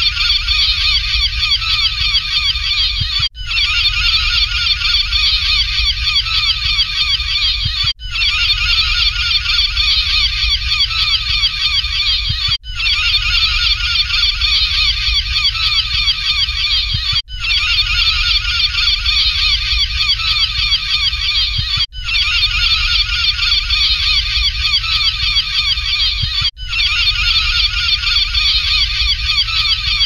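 A flock of gulls calling over one another in a dense, unbroken chorus of short harsh calls, over a low rumble. The sound cuts out briefly about every four and a half seconds, as the same short recording repeats.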